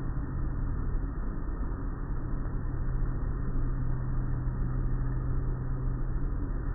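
Automatic car wash heard from inside the car: spinning cloth brushes rubbing and slapping against the window and body in a dense, steady wash of noise, over a steady low hum.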